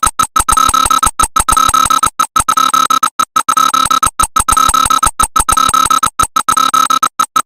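Electronic emergency alert alarm: a loud, harsh tone held at one pitch, stuttering on and off through many rapid, irregular dropouts.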